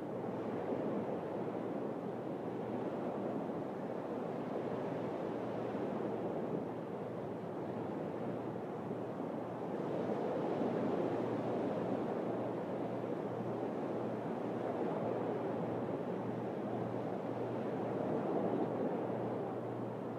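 Sea waves washing on a beach: a steady rush that swells about halfway through and again near the end, over a low steady hum.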